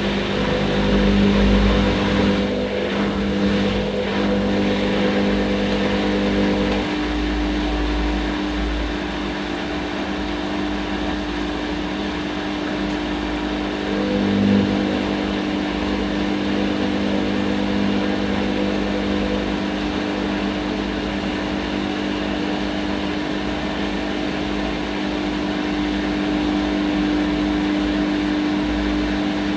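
Hoover Nextra HNL662 washing machine running through its cycle: a steady motor hum with a constant whine. The pitch pattern shifts slightly about seven seconds in.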